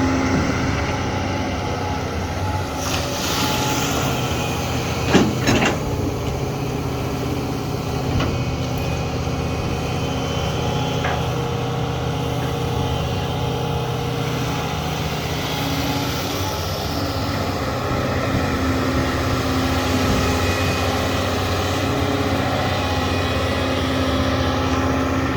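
Doosan long-arm excavator's diesel engine running steadily as the machine works. A hiss comes in a few seconds in, followed by a couple of sharp metal clanks about five seconds in.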